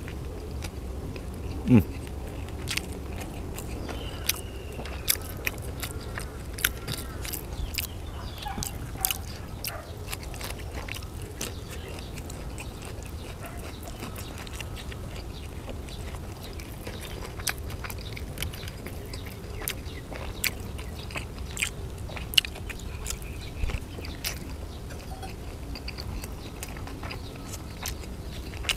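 A person chewing mouthfuls of Thai sausage, with many short wet mouth clicks and smacks throughout. A sharp thump about two seconds in is the loudest sound, over a low steady background rumble.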